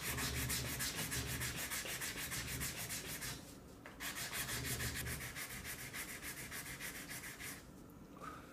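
Fine 240-grit sandpaper rubbed by hand in quick back-and-forth strokes over the faces of a small wooden board, smoothing the wood. The strokes come in two runs, with a brief pause about three and a half seconds in, and stop about a second before the end.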